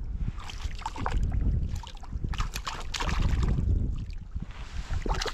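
Wind buffeting the microphone, with irregular splashing and rustling as a hooked trout is landed.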